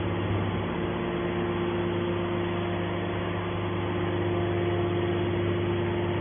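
Hydraulic metal baler's power unit running with a steady hum, its motor and pump holding a constant pitch.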